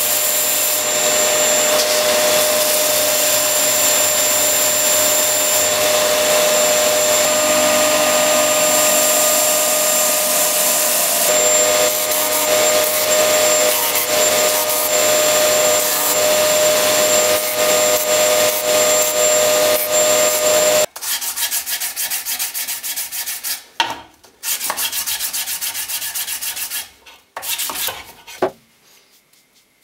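Electric belt and disc sanders running while a wooden knife handle is pressed against the moving abrasive: a steady hiss of grinding with a constant motor whine. About two-thirds of the way through, the sound drops abruptly to quieter, broken-up sanding strokes with short gaps, which stop near the end.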